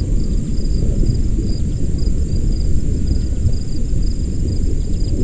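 A loud, steady low rumble, with a faint high chirp repeating about three times a second.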